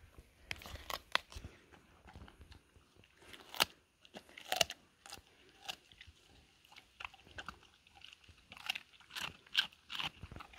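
A dog biting into and chewing a watermelon: irregular crunches of rind and flesh, loudest around four seconds in and again shortly before the end.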